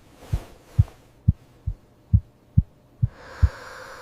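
Soft low thumps at about two a second, like a slow heartbeat. A breathy whoosh rises under them about three seconds in.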